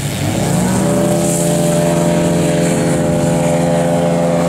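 Engine and propeller of a 60%-scale radio-controlled aerobatic airplane running at high power. It comes up sharply about a quarter second in and then holds a steady pitch as the plane flies low over the field.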